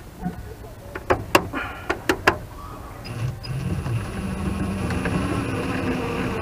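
A few sharp clicks, then a cordless drill motor running steadily from about three seconds in, getting slightly louder as it drives a screw into a wooden frame.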